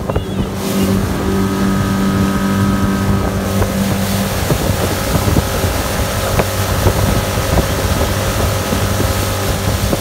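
Mercury outboard motor running at full throttle with the boat up on plane: a steady engine drone, with wind noise on the microphone.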